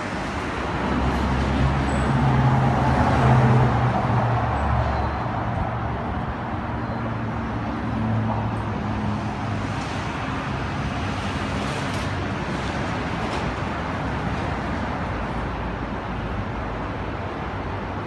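Steady rumble of road traffic. A heavier vehicle's engine hum builds over the first few seconds and fades away.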